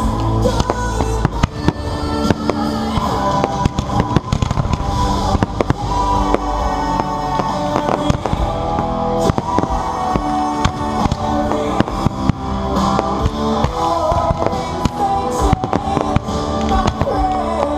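Fireworks display set to music: many sharp bangs and crackles of exploding shells over loud music played through speakers.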